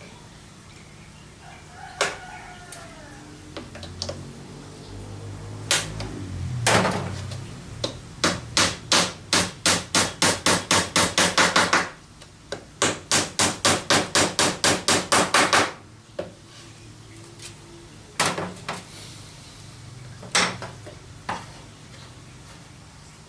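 Vintage sewing machine stitching in two runs of rapid, evenly spaced clacks, about five strokes a second, with a few single knocks before and after.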